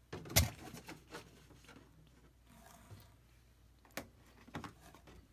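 Handling noise: a few sharp taps and knocks, the loudest just after the start and a cluster about four seconds in, over faint rustling as the plastic cup and the packing paper around it are handled.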